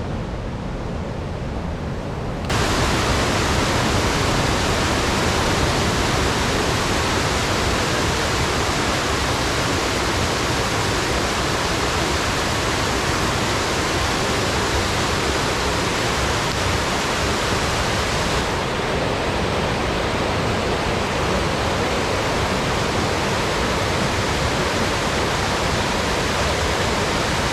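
Steady rushing of a waterfall's falling water, jumping louder about two and a half seconds in.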